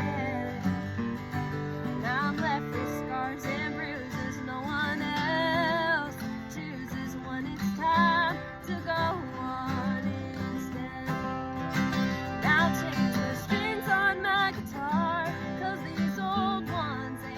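Acoustic guitar being strummed and picked under a sung melody. The voice comes in phrases with a marked vibrato on the held notes.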